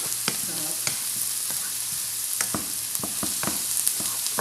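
Fried rice with carrots and onion sizzling in a hot pan while it is stirred: a steady frying hiss with irregular clicks and scrapes of the utensil against the pan, more of them in the second half.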